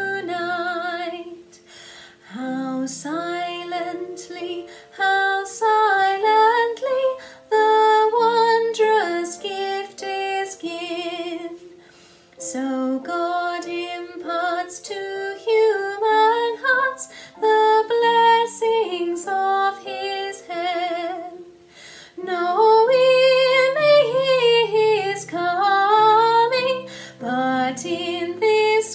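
A woman singing a Christmas carol in phrases with wavering vibrato on the held notes, over a quiet instrumental accompaniment.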